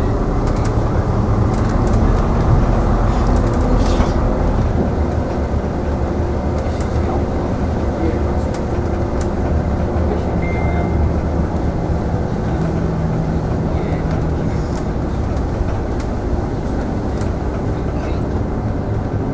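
Routemaster coach bus moving along a street, heard from inside: its diesel engine runs with a steady low drone, and the body gives occasional small rattles and clicks.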